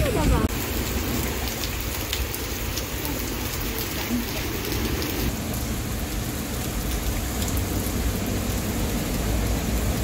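Heavy rain pouring down steadily in a storm.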